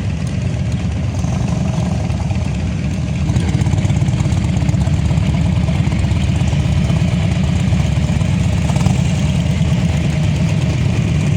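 Harley-Davidson motorcycle engines running with a steady low sound, getting louder about three and a half seconds in.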